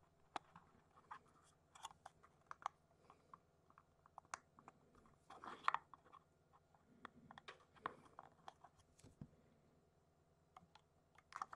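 Faint, scattered small clicks and rustles of plastic being handled: a curved strip of plasticard held and shifted against the end of a plastic model carriage body, with a slightly busier cluster of clicks about five and a half seconds in.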